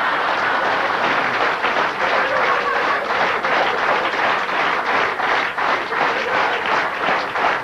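Theatre audience applauding, the clapping settling into a regular rhythm of about three claps a second in the second half.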